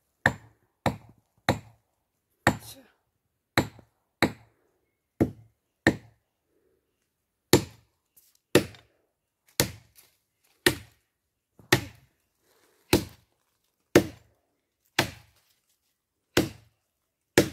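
A machete chopping into a standing tree trunk: sharp, separate woody strikes, about one a second, with a short pause near the middle, roughly eighteen blows in all.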